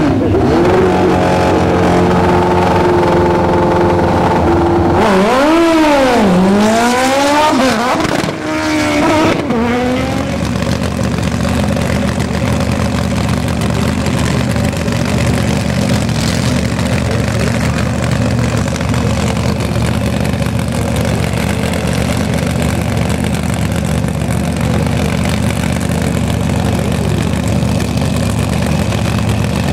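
Drag motorcycle engine held at steady revs, then revved up and down several times. From about ten seconds in, a drag car's big engine idles steadily.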